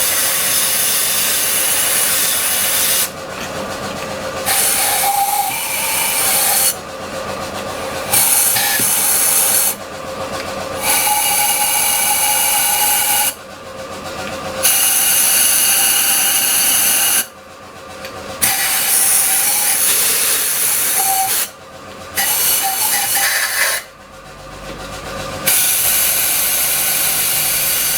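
Loud hissing noise coming in about eight bursts of two to three seconds each, with short, quieter pauses between them.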